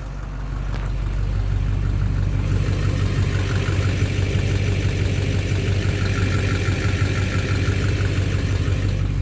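Duramax LMM 6.6-litre V8 turbodiesel idling, getting louder about a second in, then running steadily with a fast, regular clatter. This is the intermittent knock that the owner places in the bottom end, near the oil pan.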